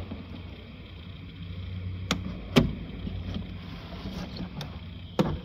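A handful of sharp plastic clicks and knocks as the door's wiring-harness connectors are handled and unplugged, the loudest about halfway through, over a steady low hum.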